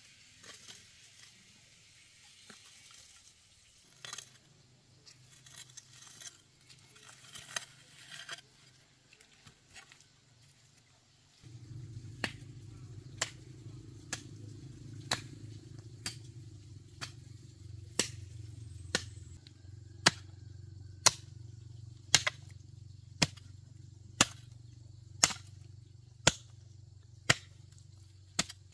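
A hand hoe scraping and scuffing over packed earth, then, from about a third of the way in, the hoe chopping into garden soil about once a second, each stroke a sharp crack, over a steady low hum.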